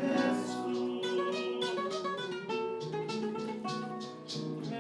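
Acoustic guitar music in a Latin style, with plucked notes and strums.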